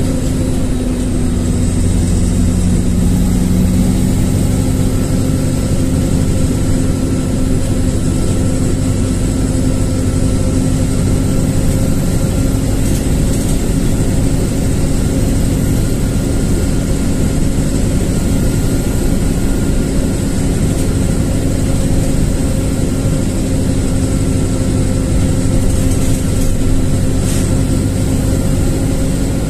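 LiAZ-4292.60 city bus under way: its engine and running gear give a steady, even hum with a faint high whine above it.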